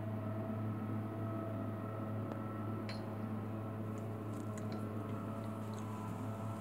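A steady low mechanical hum, with a few faint ticks and clicks in the second half.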